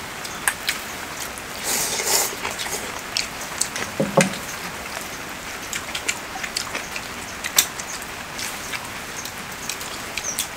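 Steady rain pattering, with many sharp drips landing close by. A couple of louder, brief eating sounds stand out, about two and four seconds in.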